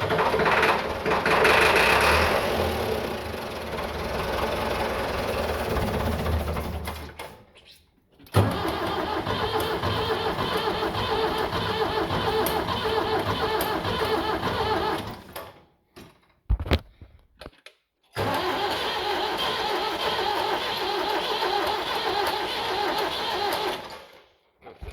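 Case IH 7610 tractor's diesel engine being cranked over on the starter with ether in the intake, in three long attempts with sudden stops between and two short blips in the middle. It is a hard start on an engine that has sat for days, and it fires on the ether.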